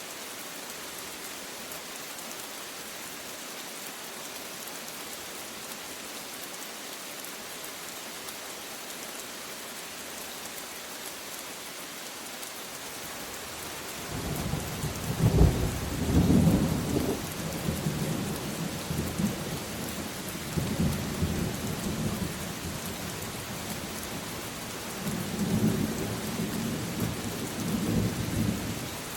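Steady rain hissing, with thunder breaking in about halfway through: a sharp crack followed by long rolling rumbles that swell several more times before dying away near the end.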